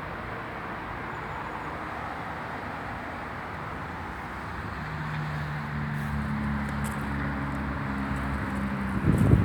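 Steady outdoor rumble, then from about halfway an engine's low hum comes in and slowly grows louder. Near the end come a few loud gusts or knocks on the microphone.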